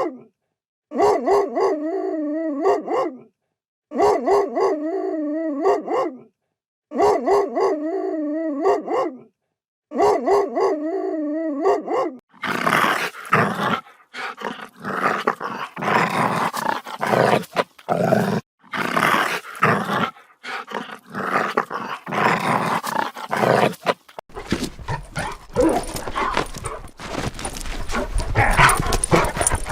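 Dog sound effects: a short, pitched, wavering dog cry played four times over with short gaps, then a long, dense, choppy stretch of dog vocalizing.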